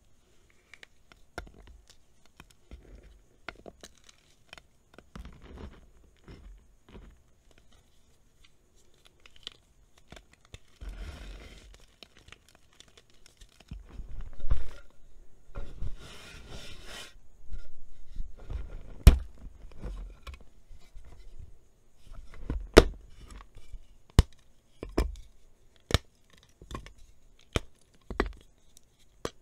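A large, hard block of reformed gym chalk being handled, scraped and crunched by hand, then cracking and snapping apart. It starts with light scattered clicks, goes to dry crunching and scraping in the middle, and ends with a series of sharp snaps as the block breaks into pieces.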